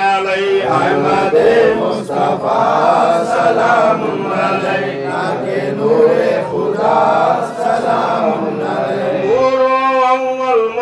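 Men's voices chanting a devotional salam together in long, drawn-out notes that rise and fall. Near the end a single voice holds one clear note.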